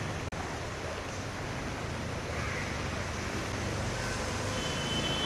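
Steady street noise on a flooded road: vehicles moving through floodwater, with the wash of water. A thin high tone comes in near the end.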